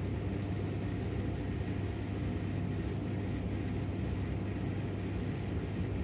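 Steady low rumbling hum with a faint hiss, even throughout, with no distinct events.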